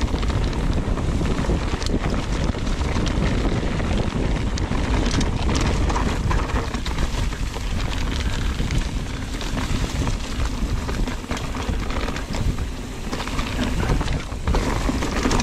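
Wind buffeting the microphone on a fast mountain-bike descent, over the rush of knobby tyres on dirt trail and a steady clatter of small knocks and rattles as the bike runs over rough ground.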